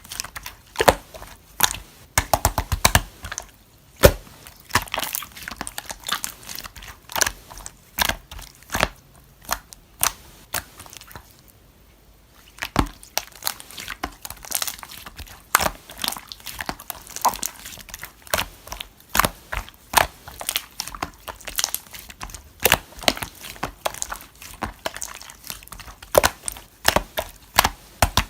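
Slime being kneaded and pressed by hand, making irregular sticky clicks, pops and crackles, with a short pause about eleven seconds in.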